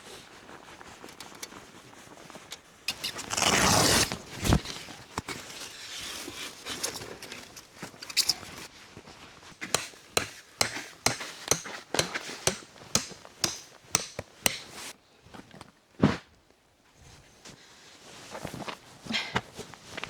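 Footsteps, a run of crisp crunching steps at about two a second through the middle, after a loud burst of noise lasting about a second near the start.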